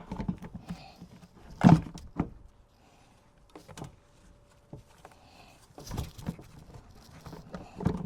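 Knocks, bumps and scraping of a 6.5-inch subwoofer being handled and pushed into its plastic speaker housing in a test fit, the loudest knock a little under two seconds in.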